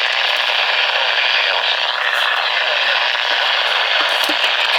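Radio static: a steady, loud hiss from a radio receiver with no clear voice coming through.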